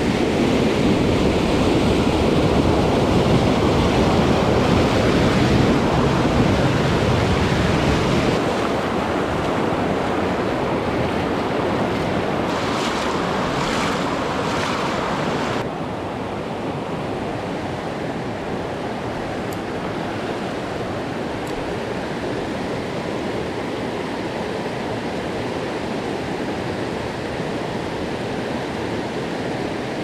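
Rushing white water of a rain-swollen mountain stream, a steady full roar that drops a step about eight seconds in and again about halfway through, leaving a softer, even rush of riffles.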